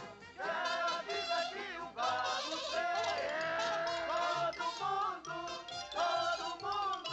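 Lively jazz band music with horns and a plucked bass line.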